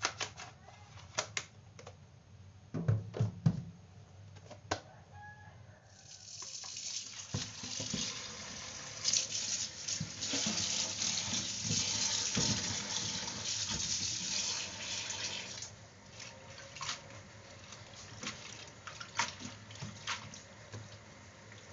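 A few sharp clicks and knocks from a plastic food-container lid being handled and snapped shut. From about six seconds in, a kitchen tap runs steadily into a bowl in a stainless steel sink for about ten seconds. After that it drops to quieter splashing and clicks as leafy greens are rinsed in the sink.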